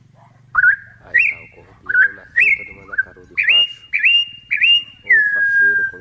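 Campo troupial (corrupião) singing: a run of about nine loud, clear whistled notes, each sliding up and then held, ending on one long, slightly falling whistle.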